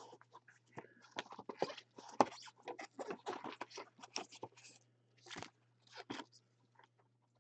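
Wrapping and cardboard of a trading-card hobby box crinkling and rustling in irregular crackles as gloved hands open it, lift the lid and pull out the foil packs; the loudest crackle comes about two seconds in.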